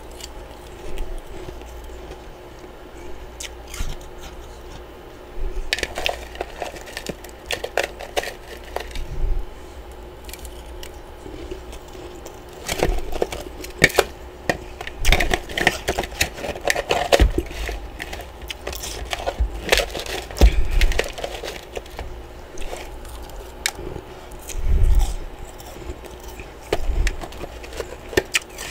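Close-miked crunching of chunks of freezer frost: irregular crisp cracks and crunches that come in clusters with quieter pauses between.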